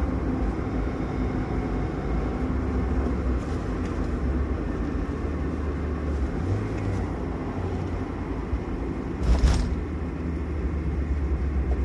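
Car driving: steady engine and road rumble, with a brief louder bump about nine and a half seconds in.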